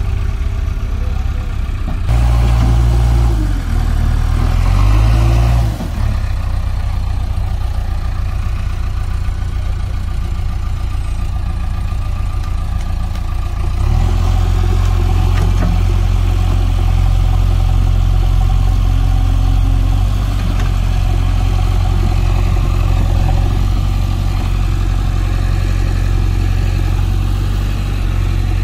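Heavy diesel engine running. It revs up and down several times a few seconds in, then settles into a steady, slightly louder run from about halfway through.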